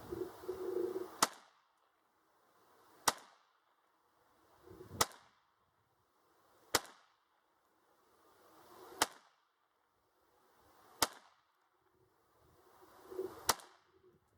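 Taurus TX22 .22 LR semi-automatic pistol firing Winchester Super X rounds: seven single shots at a slow, steady pace, about two seconds apart.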